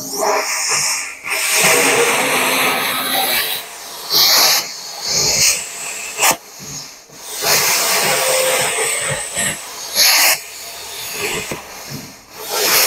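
Bestarc BTC500DP 50-amp plasma cutter cutting a thin steel barrel: a loud, rough hiss of the plasma arc and its compressed air. The hiss drops away briefly several times and comes back.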